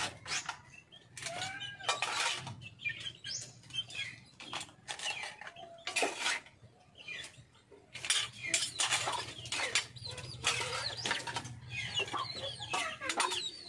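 Irregular clattering and sharp knocks, with short chirping bird calls in between that come thicker in the second half.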